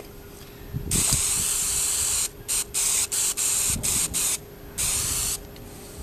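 Aerosol can of spray adhesive spraying onto fibreglass insulation: one long hissing spray about a second in, then a string of short puffs and a last short spray near the end.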